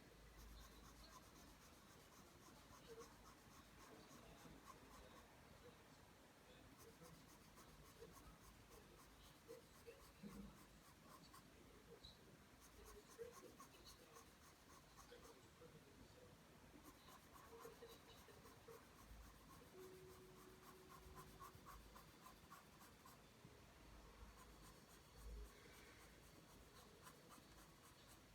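Pencil drawing lines on paper, faint, in quick repeated strokes.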